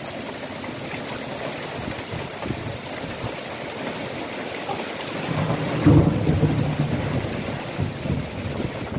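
Heavy rain falling steadily, with a low rumble of thunder building about five and a half seconds in, loudest near six seconds and dying away over the next couple of seconds.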